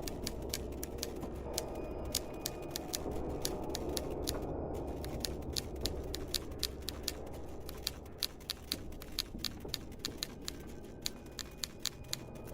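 Sharp clicks, several a second in uneven runs with brief pauses, over a low steady rumble.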